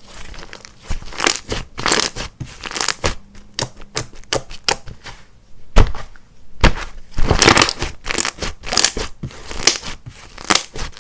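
Hands squishing, stretching and tearing thick slime: a run of short, irregular squelches and crackles, with two deeper pops around the middle.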